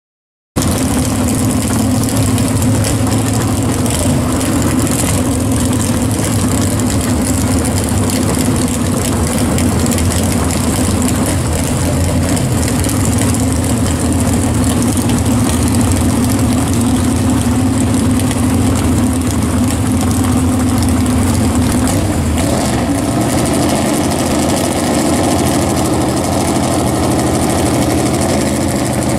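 G-body drag car's engine idling loudly and steadily on the starting line, starting suddenly about half a second in. Its note changes about 22 seconds in.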